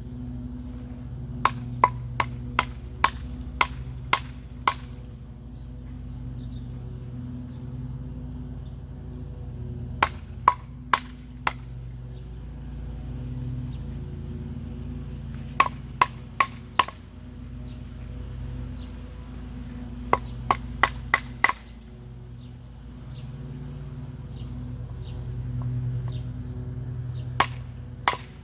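Repeated sharp blows on wood, coming in runs of four to eight strikes about two a second with short pauses between the runs. A steady low hum runs underneath.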